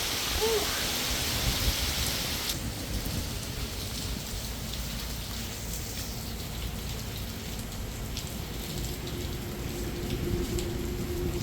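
Heavy rain from Tropical Storm Beryl, a steady hiss with single drops ticking on a nearby surface. The high part of the hiss drops away sharply about two and a half seconds in.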